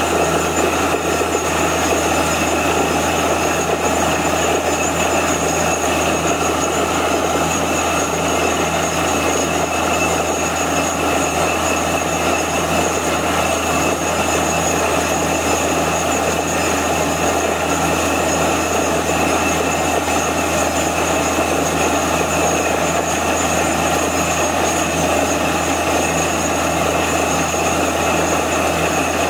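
Truck-mounted borewell drilling rig running steadily as it drills, its engine and air compressor making a constant drone with a high whine on top, along with air and wet cuttings blowing out of the borehole.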